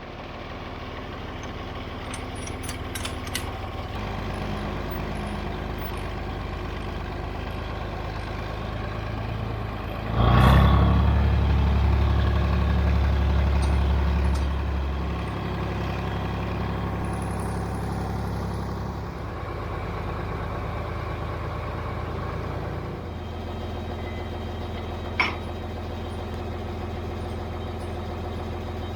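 John Deere 4020 tractor engine running warmed up, revved higher about ten seconds in for several seconds, then settling back to a lower speed. A short sharp click near the end.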